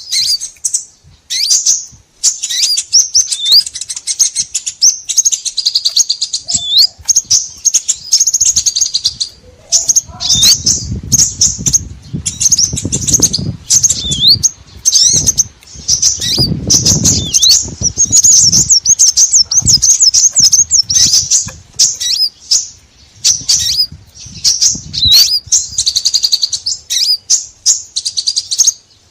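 Dense, nonstop high-pitched chirping and twittering of many small songbirds, a bird-lure call recording meant to draw in small birds. A low rumble sits underneath for several seconds in the middle.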